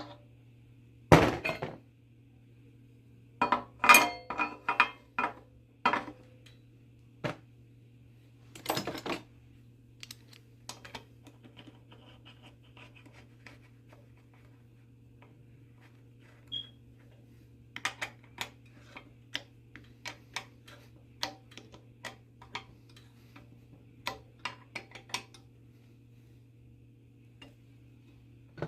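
Metal tools and bike parts clinking and knocking against each other in scattered strikes during bicycle crankset and pedal assembly. The loudest knocks come about a second in and around four seconds in, then lighter clicks follow.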